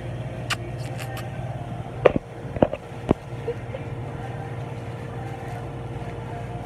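Steady low hum of an indoor store's background, with a few sharp clicks around the first second and a short run of knocks about two to three seconds in.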